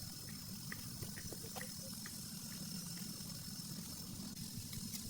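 Steady rain falling, with scattered individual drops dripping and ticking.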